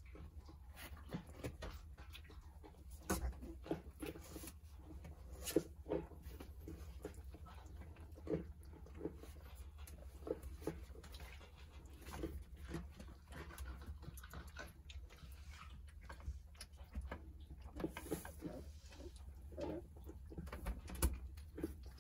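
A litter of Jindo puppies moving about in a cardboard box: many small scratches and patters of paws on the cardboard, with faint puppy sounds in among them.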